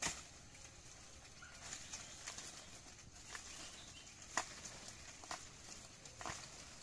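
A few separate sharp snaps and knocks with light rustling, from hands working the stem and dry leaves of a banana plant. The loudest snap comes right at the start, another about four seconds in.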